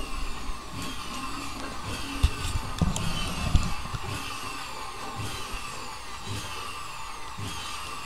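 Vacuum-cleaner motor driving a homemade generator rig, running with a steady hum, with high falling chirps repeating about every two-thirds of a second. A couple of sharp knocks come about two and three and a half seconds in.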